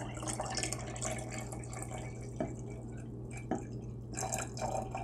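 Water trickling and dripping from a glass measuring cup into a glass jar of water, poured slowly in small splashes to top the level up to a mark. Two light clicks come about two and a half and three and a half seconds in.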